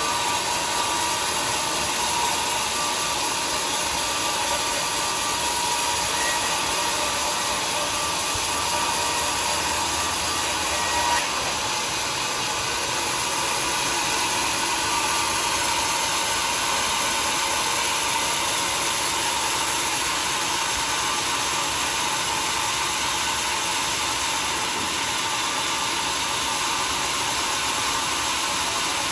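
Sawmill saw running with a steady, even noise and a faint constant whine, with a small knock about eleven seconds in.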